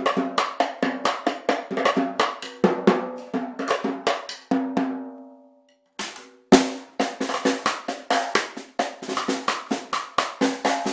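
Snare drum played with sticks in quick strokes. About four and a half seconds in, one stroke is left to ring out with a clear pitched ring that fades to silence. A single loud crack follows about a second later, then the steady strokes resume.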